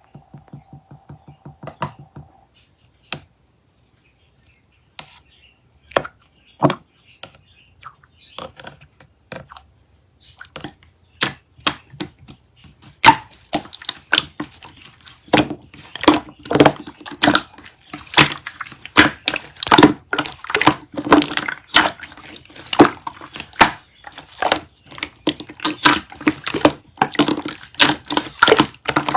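Slime being pressed and worked by hand, giving sharp clicking and popping sounds: a few scattered clicks at first, turning into a dense, rapid crackle about a third of the way in. A short faint hum sounds at the very start.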